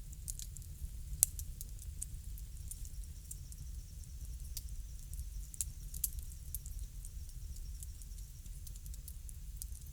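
Wood fire crackling: scattered sharp pops and snaps over a low, steady rumble, with one louder pop about a second in.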